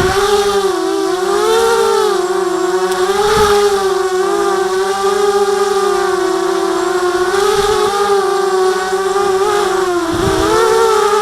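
ZMR250 racing quadcopter's brushless motors and propellers whining in flight, the pitch rising and falling over and over as the throttle changes.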